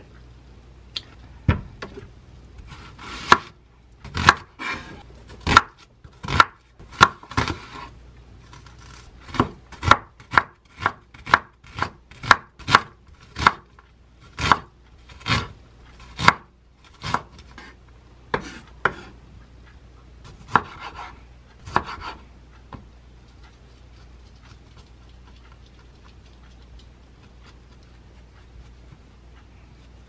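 Chef's knife dicing an onion on a wooden cutting board: sharp knocks of the blade against the board, irregular, about two a second, stopping about three-quarters of the way through.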